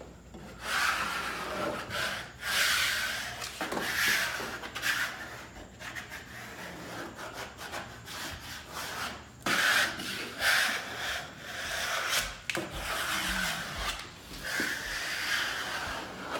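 A squeegee rubbed in repeated strokes over vinyl wallpaper along its edges, pressing it down against the wall.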